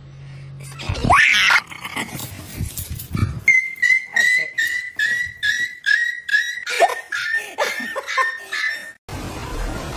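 Small dog barking in a rapid series of high-pitched yips, about three a second, after a single short rising cry about a second in. The yipping stops abruptly near the end.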